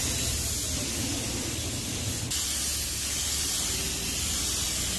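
Compressed-air paint spray gun spraying silver paint onto a repaired car door panel: a steady hiss with a brief catch a little past two seconds in, over a low steady hum.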